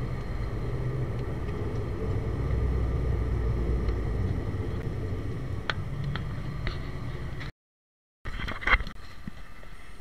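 Cabin noise of a high-wing turboprop airliner rolling on the runway: a steady engine drone that swells for a couple of seconds about two seconds in, then eases. It cuts off abruptly a little after seven seconds, and quieter outdoor noise with a single sharp knock follows.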